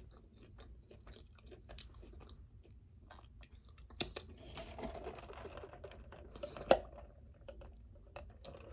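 A person chewing close to the microphone, with soft crunches and small mouth clicks at an irregular pace; one sharper click comes about halfway through, and a louder one later.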